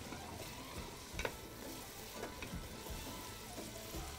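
Onions frying in oil in an aluminium pot, sizzling steadily as they are stirred with a wooden spoon. The spoon knocks against the pot a few times, most clearly about a second in.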